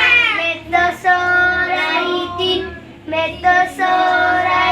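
Young children singing or chanting a rhyme, with several long held notes.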